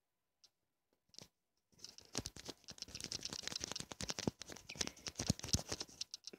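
Rustling and scraping of a phone being rubbed against a plush toy and a fabric blanket: after a quiet second or so, a dense, uneven run of small scratches and clicks.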